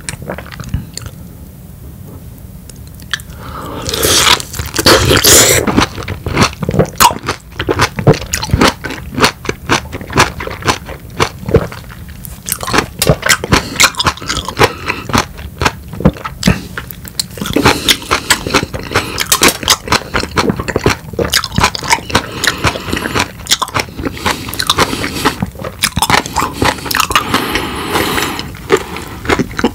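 Close-miked biting and chewing of a peeled whole lemon: rapid wet mouth clicks and smacks, which begin about four seconds in after a quieter moment.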